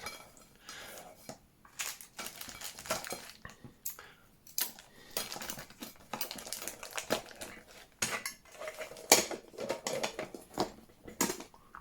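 Trangia Mini cook-set pieces and 3D-printed plastic parts being handled. Irregular clinks, taps and light scrapes as the parts are fitted together and set down, with a sharper knock about nine seconds in.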